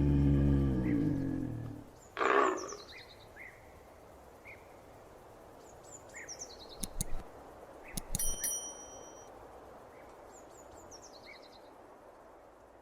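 Leopard roar trailing off, then a second, shorter call about two seconds in. After that, faint bird chirps over a quiet natural background, with a few sharp clicks around seven to eight seconds in.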